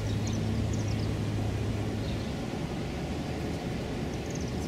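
Tugboat diesel engine running as the tug passes: a steady low drone that fades about two seconds in, leaving a low rumble. Small birds chirp in quick falling notes early on and again near the end.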